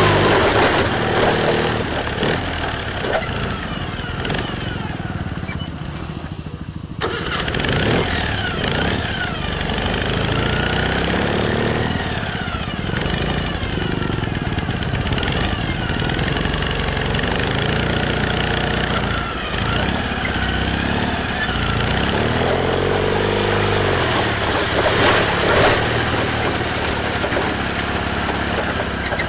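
Ural sidecar motorcycle's boxer-twin engine running under way on a rough trail, its revs rising and falling with the throttle. It eases off for a moment around six seconds in, then picks up sharply again about a second later.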